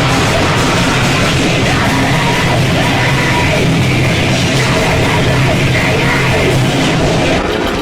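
Extreme metal band playing live and loud: distorted guitars and drums with yelled vocals.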